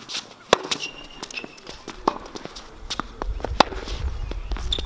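Tennis ball struck back and forth by rackets in a rally on a hard court: three sharp hits about a second and a half apart, with quick footsteps and shoe scuffs between them. A low rumble sets in about three seconds in.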